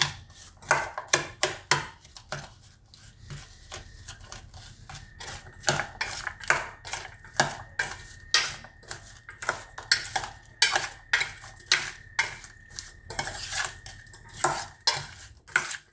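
Steel spoon stirring and tossing oil-coated carrot sticks in a stainless steel bowl, clinking and scraping against the bowl in an uneven series of strokes, a couple or more each second.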